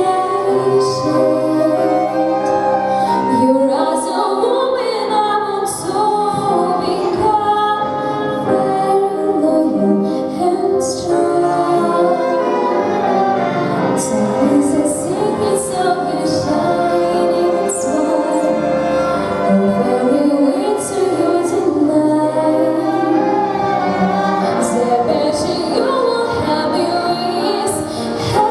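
A school orchestra playing a song, with a female voice singing over sustained ensemble chords and light percussion hits.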